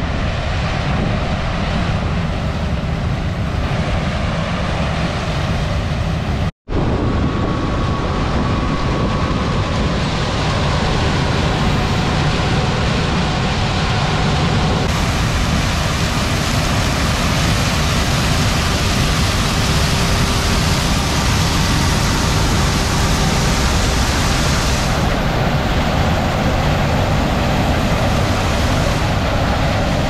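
Claas Lexion 8800 combine harvester running steadily while harvesting corn, a dense even machine noise. It cuts out completely for a moment about six and a half seconds in.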